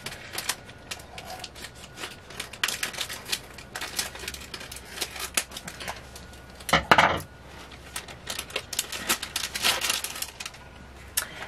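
Scissors cutting into a jewelry package, with the plastic and card packaging crinkling and clicking as the hair piece is freed. It is a string of small quick clicks and rustles, with a louder burst about seven seconds in.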